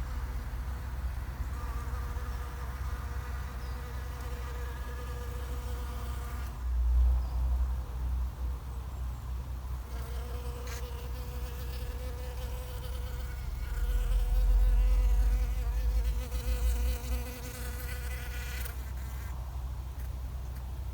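Bees buzzing in a steady drone that fades out for a few seconds mid-way, then returns. Two spells of low rumble, about seven seconds in and again from fourteen to sixteen seconds, are the loudest moments.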